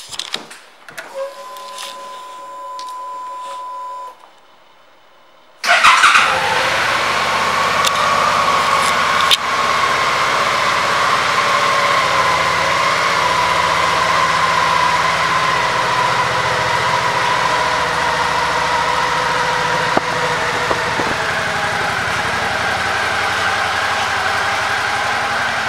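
2014 Suzuki V-Strom 650's 645 cc V-twin engine. A few clicks and a steady whine of about three seconds as the ignition is switched on, then a short pause before the engine starts about six seconds in. It then idles steadily.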